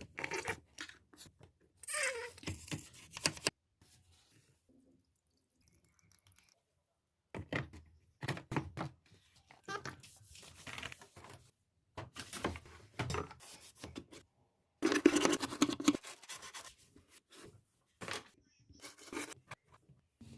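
Irregular scrubbing, rubbing and knocking sounds of a washing machine being cleaned by hand, in short uneven bursts with a silent gap about four seconds in; the loudest stretch comes about fifteen seconds in.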